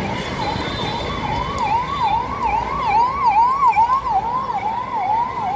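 A siren yelping, its pitch sweeping up and down quickly about three times a second, over the steady noise of a packed crowd.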